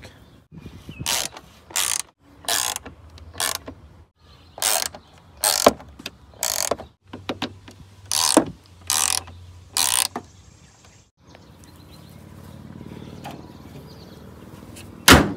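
Ratchet socket wrench clicking in short bursts, about a dozen strokes, as bolts are run back in. Near the end comes one loud bang, the hood being shut.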